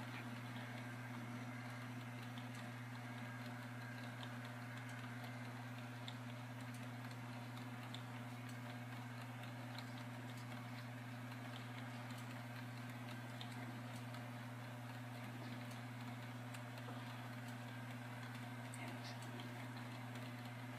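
HO-scale model train running on the layout, faint: a steady low hum with light, irregular clicking of wheels on the track.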